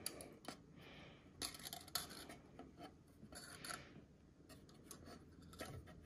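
Faint scattered metal clicks and scraping as the chrome insert of a large replica tabletop Zippo lighter is handled.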